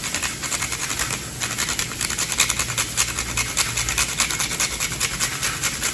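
Whole nutmeg grated on a small metal hand grater: a quick, regular run of dry scraping strokes.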